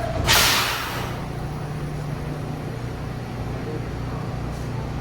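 New York City subway train giving a sharp air hiss lasting under a second, near the start, as its brakes set at the stop. A steady low hum from the standing train follows.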